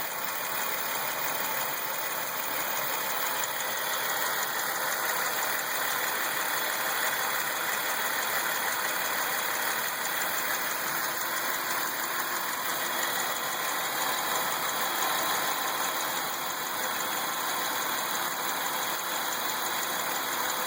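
3.8-litre Ecotec V6 engine running steadily with a ticking, along with other noises that the owner believes come from the alternator.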